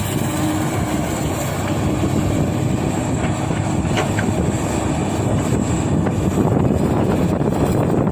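Komatsu excavator's diesel engine running steadily as the machine works.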